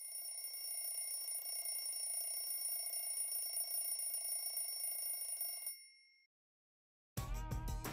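Electronic timer alarm ringing with a steady, shrill tone for about six seconds, then cut off abruptly as it is switched off: the signal that the timed ice-bath hold is up.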